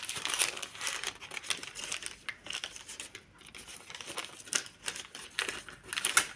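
Packaging crinkling and rustling as it is handled, in an irregular run of small crackles and taps.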